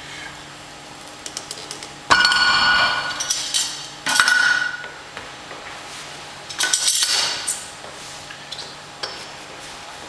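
Metal weight plates and the loading pin clanking together three times, about two seconds apart, each clank ringing on for about a second, with a few lighter clinks between.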